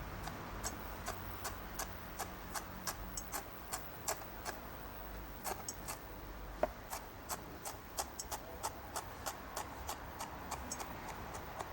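A kitchen knife finely chopping basil stalks on a cutting board: a steady series of light knife taps, about two to three a second.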